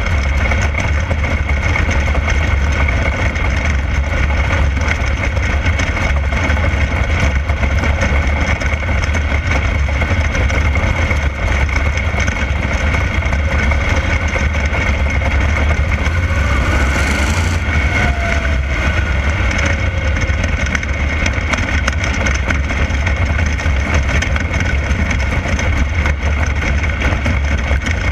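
A 360 sprint car's methanol-burning V8 running hard and steady at racing speed on a dirt oval, heard from onboard the car. A brief burst of hiss comes a little past the middle.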